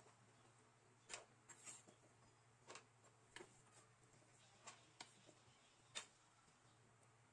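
A kitchen knife cutting a potato into cubes on a wooden cutting board: faint, irregular taps and clicks, about seven or eight in all, over quiet room tone.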